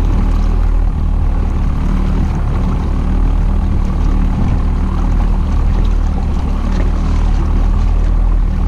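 Fishing boat's engine running steadily under way, a constant low hum, with a rush of wind and water over it.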